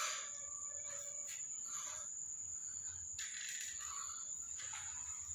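Marker pen drawing on paper on a clipboard: a few faint, short scratching strokes, with a steady high-pitched whine behind them.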